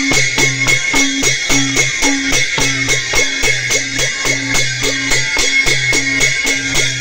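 Madal, a Nepali double-headed hand drum, played in a fast even rhythm of about four strokes a second, its low and high heads alternating, with a steady high metallic ring and a jingle on each beat.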